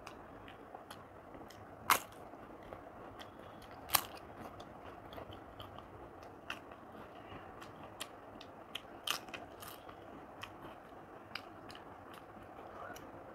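Papad (crisp fried lentil wafer) being snapped and crunched while eating, with two sharp cracks about two and four seconds in and many smaller crackles and clicks of chewing.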